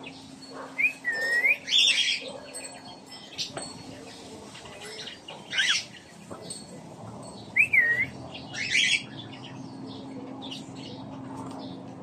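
Cockatiel chirping and whistling in short calls spaced a few seconds apart, two of them a curving whistle that dips and rises. A faint steady hum runs underneath.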